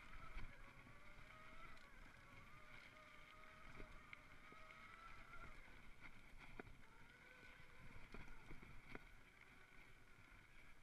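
Electric mountain bike running fast down a dirt singletrack, heard faintly: tyres rumbling, a few sharp knocks and rattles over bumps, and a drivetrain whine that drifts up and down in pitch, fading out for a moment midway and then coming back.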